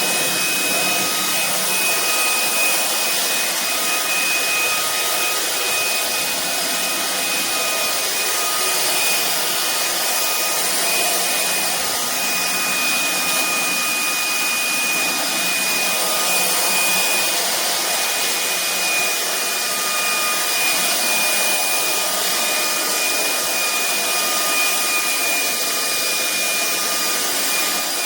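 Vistefly V15s Max cordless stick vacuum cleaner running steadily: an even rushing of air with a high, constant motor whine.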